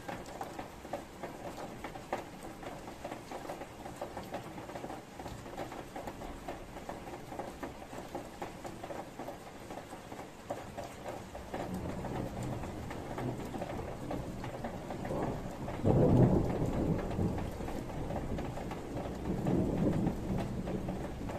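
Steady rain pattering with fine drip ticks, then thunder rumbling in about halfway through, building to a loud peak about three-quarters of the way through and swelling again near the end.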